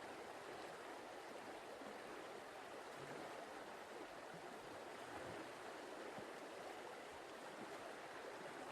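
Faint steady hiss of background noise, with no distinct events.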